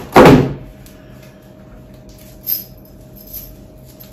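A cardboard shipping box being put down with a loud scraping thud lasting about half a second, followed by a few light clicks and rustles of handling.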